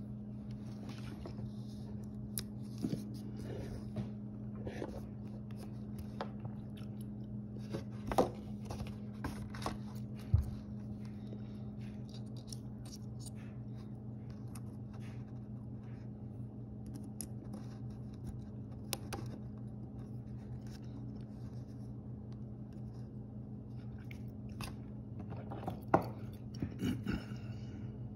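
Sporadic small clicks, taps and scrapes of a Savage 64 rifle magazine and its release parts and pin being handled and fitted by hand, over a steady low hum. The sharpest clicks come about ten seconds in and again near the end.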